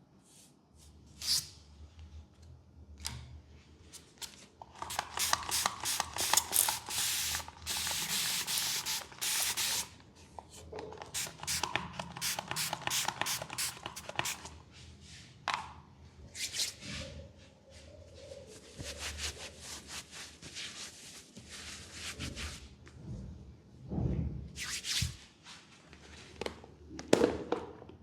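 Hands rubbing and patting on skin during a massage, in runs of quick strokes several a second, with a few louder single slaps near the end.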